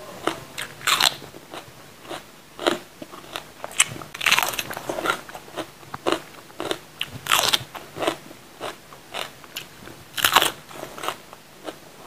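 Crisp crunching bites and chewing of a raw green bell pepper, a dozen or so separate crunches at an uneven pace, the loudest about four, seven and ten seconds in.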